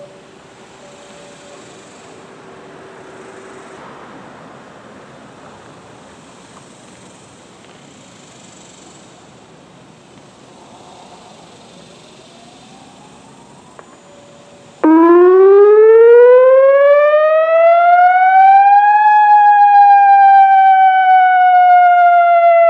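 Faint background noise for about fifteen seconds, then an ATI HPSS-32 electronic outdoor warning siren switches on abruptly and loud in its wail tone, rising in pitch for about four seconds and then slowly falling. It sounds cleanly, without any strange noises.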